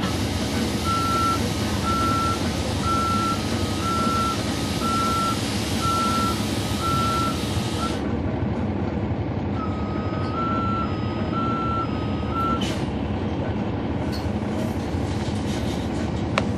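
Inside a transit bus, its Cummins ISL9 diesel engine running with a steady rumble while the bus's warning alarm beeps in an alternating two-tone pattern, about two beeps a second. A loud hiss runs under the first eight seconds and stops abruptly; the beeping pauses briefly, then sounds again for about three seconds.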